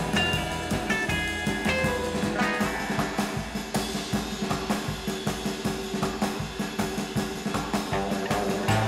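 Background rock music with a steady drum-kit beat.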